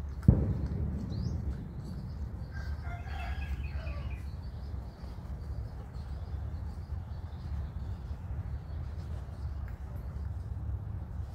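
A single sharp thump just after the start, the loudest sound, over a steady low hum. From about two and a half seconds in, an animal calls once for about a second and a half.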